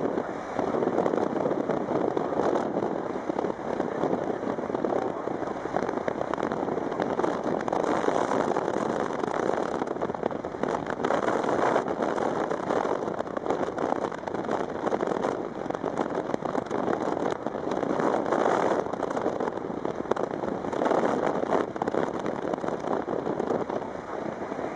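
Wind rushing and buffeting over the microphone of a vehicle moving at highway speed, mixed with road noise: a steady rush full of small crackles that swells and eases in gusts.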